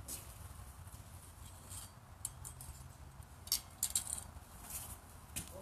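A few faint, sharp metallic clinks scattered over several seconds, from steel pitching horseshoes being handled in the pitching box.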